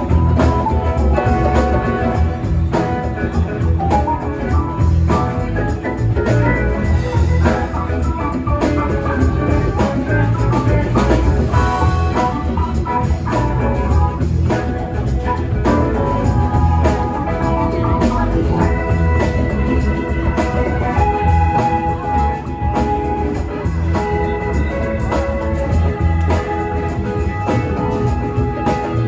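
Live band playing an instrumental jam with drum kit, bass, guitar and keyboard.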